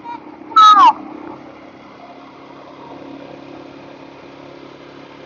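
Steady drone of a vehicle's engine and road noise heard from inside the cab. About half a second in comes a brief loud high cry, falling in pitch, in two quick pulses.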